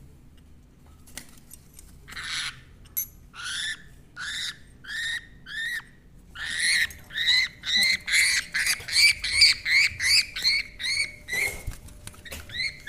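Pet parrot calling in a run of short, repeated squawks starting about two seconds in, about two a second at first and then faster, about three a second, from about six seconds in.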